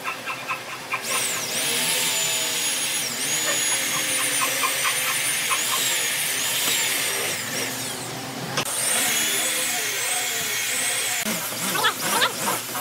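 Corded electric drill boring into pine pallet boards, its motor whine dipping in pitch as the bit bites into the wood and recovering. The whine stops briefly after about eight seconds and then resumes, with a few knocks near the end.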